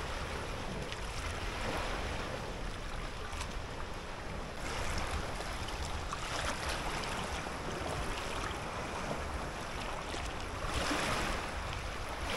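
Wind rumbling on the microphone over moving water at the lake's edge, a steady rushing noise that swells about five seconds in and again near the end.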